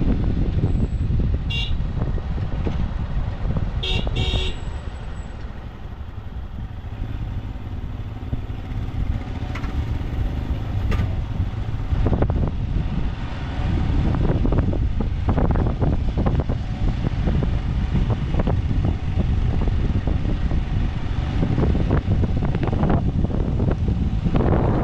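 Motorcycle on the move, with heavy wind rumble on the microphone over the riding noise. A vehicle horn toots briefly twice in the first few seconds.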